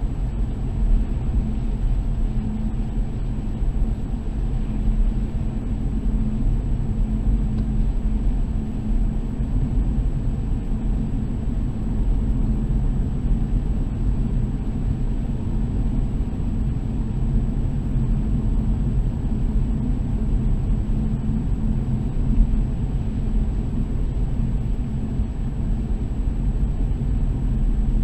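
Car driving at a steady speed, with a continuous low engine and road rumble.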